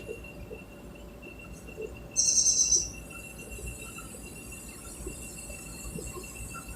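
A short, high, pulsing chirp about two seconds in, most like a small bird's call, over a low rumble and a faint steady high whine.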